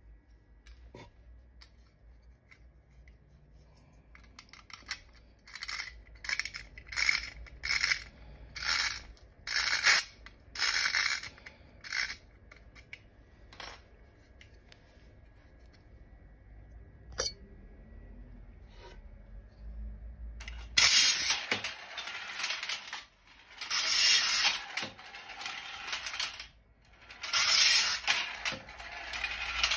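Soviet tin clockwork toy car being wound: a run of short ratcheting clicks, about one burst a second. About 21 s in it is released and runs along its plastic track, its spring motor whirring in long stretches with a few short breaks.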